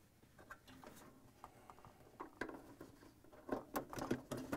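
A gloved hand working a plastic refrigerator wire-harness connector: scattered light clicks, taps and rustles, coming faster and louder about three and a half seconds in as the connector is pushed together.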